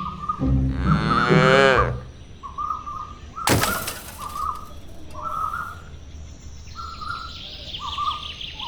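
Birds calling: a short chirp repeated about once a second, joined near the end by faster, higher twittering. Before the chirps start there is a loud wavering call, and a single sharp click comes about three and a half seconds in.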